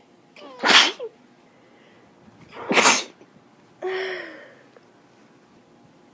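A person sneezing twice, loud sudden sneezes about two seconds apart, then a shorter, softer voiced breath-out about a second later. Allergic sneezing.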